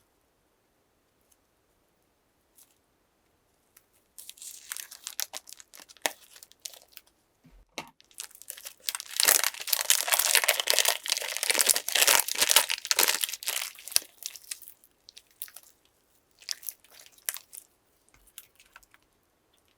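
Crisp crackling and crinkling from slime and piping bags being handled: scattered crackles at first, a dense loud stretch of about six seconds in the middle, then scattered crackles again.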